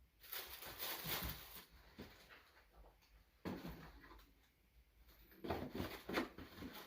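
Soft rustling and handling of gift packaging and wrapping paper in a few irregular spells as a present is unpacked.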